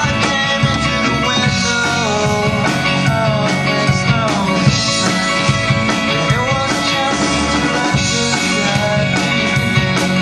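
Student rock band playing a song live, with loud, steady full-band music. In the first half there is a run of notes that slide and bend in pitch.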